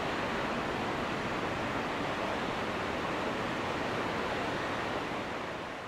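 Steady rushing outdoor noise, fading out near the end.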